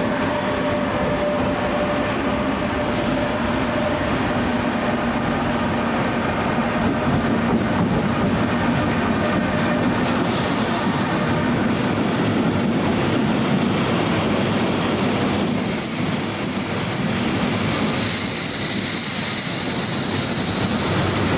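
An E402B electric locomotive and its train of vintage Centoporte coaches rolling slowly past along a platform: a steady rumble and clatter of wheels on rail, with a thin high wheel squeal setting in about two-thirds of the way through.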